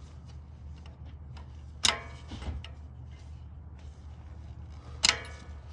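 Two sharp metallic clinks with a short ring, a few seconds apart, among lighter ticks: steel brake hardware knocking against the front brake caliper as the pad pins and spring brace are fitted. A faint steady low hum runs underneath.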